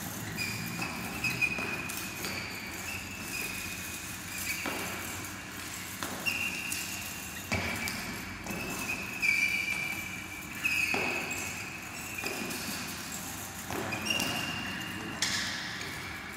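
Steel chain whip swung in a kung fu form: sharp metallic clanks every second or two, several with a brief high ring of the links.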